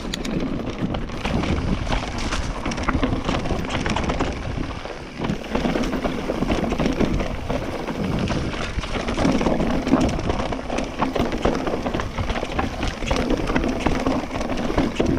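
YT mountain bike descending a rough dirt and rock trail: tyres crunching over stones and ruts, with a steady clatter of the bike rattling over the bumps. Wind buffets the camera's microphone throughout.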